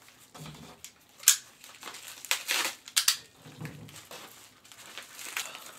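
A paper envelope being handled and opened: rustling and crinkling paper with a few sharp crackles, the loudest just over a second in.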